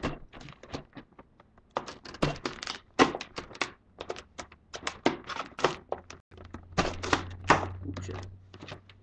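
Hard clear plastic clamshell packaging being handled, with an irregular run of clicks, taps and knocks as it is turned over and pressed.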